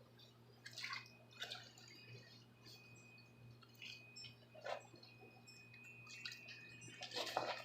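Faint, scattered water drips and small splashes, a handful of them, the loudest near the end, over a steady faint hum.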